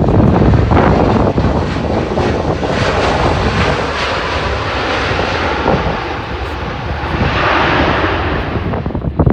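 Engines of a landing airliner as it passes: a rushing engine noise that builds to its loudest about eight seconds in, then falls away. Wind buffets the microphone underneath.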